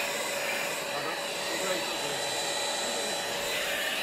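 Vacuum cleaner running steadily as its nozzle is worked across the floor, with a constant whine over the rush of air.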